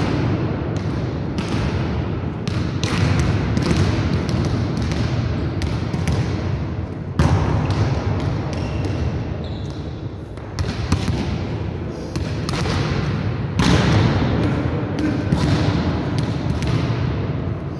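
Volleyballs being hit and bouncing off the floor of a large gym: an irregular run of sharp slaps and thuds, several a second, each echoing through the hall.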